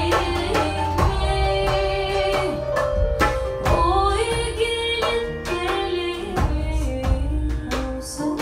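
A woman singing a melody over beatboxed vocal percussion: a steady beat of mouth-made kick thumps and snare clicks. The voices carry through microphones.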